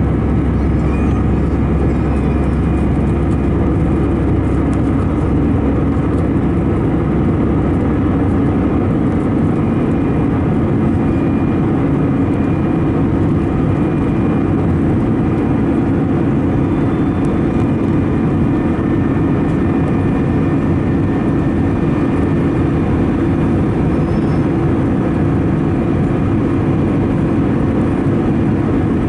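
Steady engine and airflow noise inside the cabin of an Airbus A319-111 in flight, its CFM56 turbofans giving a dense low drone with a few faint steady tones. The deepest rumble eases about nine seconds in.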